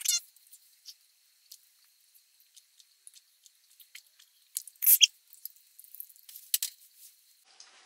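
Faint gulping and wet mouth clicks of a person drinking water to swallow a large tablet, louder about five seconds in.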